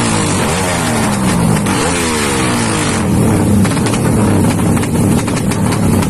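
Drag-racing motorcycle engine revving hard as it accelerates through the gears. Its pitch climbs in several rising sweeps, each cut by a gear change, over a loud steady din.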